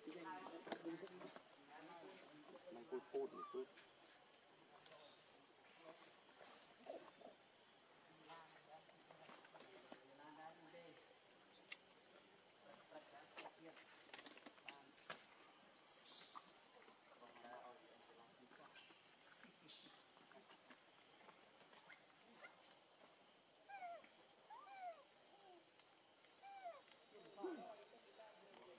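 Steady high-pitched drone of a forest insect chorus, with faint short squeaks and chirps scattered through it.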